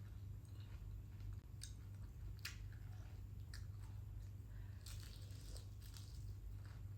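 Close-up sounds of a person biting and chewing fried chicken, with sharp crunches at irregular intervals over a steady low hum.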